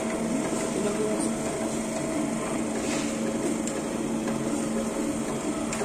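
A workshop machine tool running steadily: an electric motor hum with a fainter higher tone above it and a constant mechanical rushing noise.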